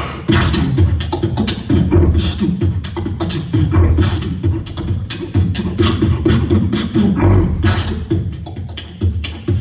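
Live human beatboxing: a fast, dense beat of vocal kick-drum hits, snare and hi-hat clicks made with the mouth.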